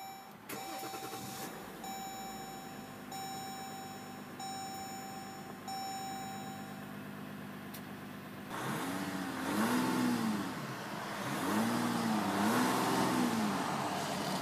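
2014 Jeep Grand Cherokee's 3.0-litre EcoDiesel V6 turbodiesel idling just after start-up, with a dash warning chime repeating about once a second for the first seven seconds. Then the engine is revved up and back down several times, in two groups.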